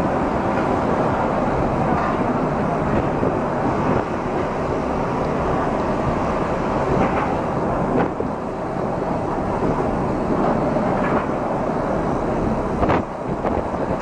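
Steady roar of wind and heavy seas breaking around a ship, with a low rumble under it and a few brief knocks.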